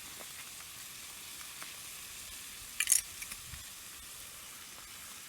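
Lamb (Jingisukan) sizzling steadily in a one-person Jingisukan grill pan, with a brief sharp clatter about three seconds in.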